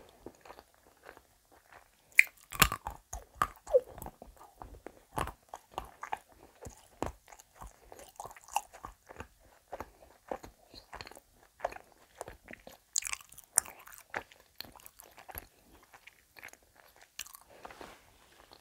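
Close-miked chewing of a small chocolate egg: irregular crunches and wet clicks, with no rhythm, louder a couple of seconds in and again past the middle.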